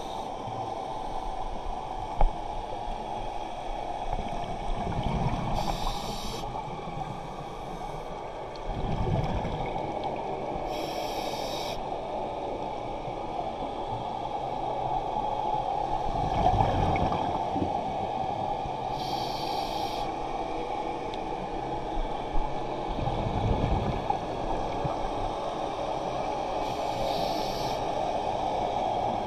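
Scuba diver breathing through a regulator underwater: a short hiss on each inhalation alternates with a low bubbling rumble of exhaled bubbles, about four breaths over a steady muffled water noise.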